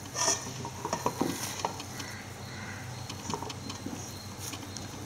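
Hands working a soft maida-and-khova dough into small balls, with scattered faint taps and clinks against a dish over a low steady hum.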